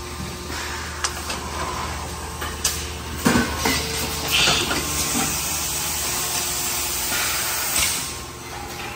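Industrial machinery running: a steady low hum under hissing air, with several sharp clicks and knocks and a short burst of hiss about four and a half seconds in.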